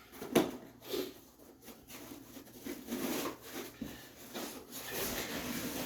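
A statue's cardboard box and packing being handled and opened: a sharp knock shortly after the start, then irregular rubbing and sliding.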